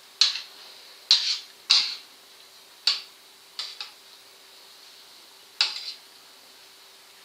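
Kitchen utensils clinking against cookware: about six sharp clinks at irregular intervals, each with a short ring.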